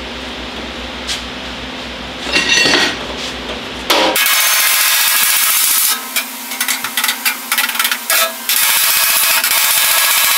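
Body hammer striking the edge of a stainless steel sheet panel against a hand-held dolly. A few light taps come first, then about four seconds in a rapid, steady run of hammer blows with a few short breaks. The blows are tapping down a high spot on the edge.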